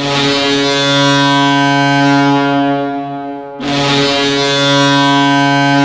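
HC Sibir Novosibirsk's arena goal horn sounding two long, steady blasts, the second starting about three and a half seconds in.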